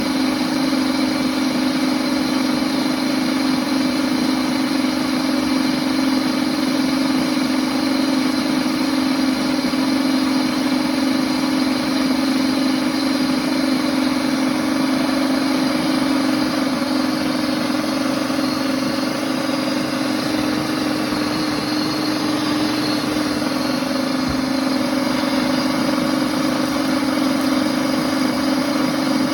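Princess House Vida Sana blender's motor running steadily, blending milk with chocolate tablets and cinnamon, a constant hum.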